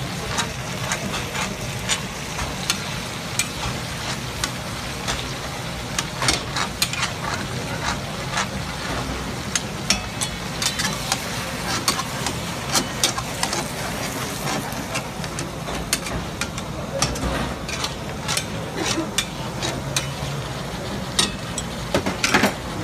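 Long metal ladle and tongs clinking and scraping against a large black karahi wok as mutton karahi is stirred, in irregular sharp clinks, over steady sizzling of meat, sauce and tomatoes frying on high heat. A low steady rumble runs underneath.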